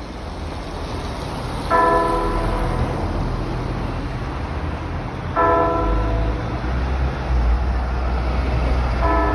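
A Russian Orthodox church bell struck three times at an even pace, about one stroke every three to four seconds, each stroke ringing on and fading. A low rumble builds underneath from a couple of seconds in.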